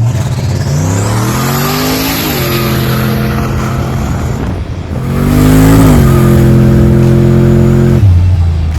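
V8 engine revved up and held at high revs twice, the second time louder, then dropped back to idle, with a hiss of spinning tires over it: a burnout.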